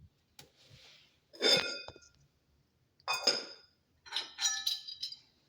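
Small metal parts clinking and rattling against each other with a short ring: one strike about a second and a half in, another near the middle, then a quick run of several clinks near the end.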